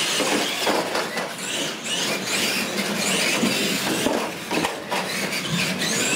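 Two brushed-motor RC monster trucks racing on a hard floor: electric motors and gears whining, rising and falling in pitch with the throttle, over a steady rush of tyre and drivetrain noise.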